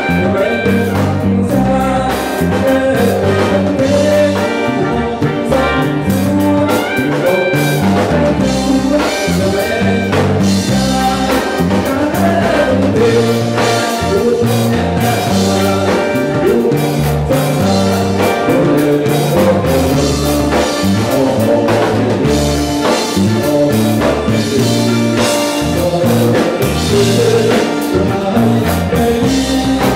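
Live band playing an upbeat song through a PA: drum kit, electric guitars and keyboard, with a man singing into a microphone at times.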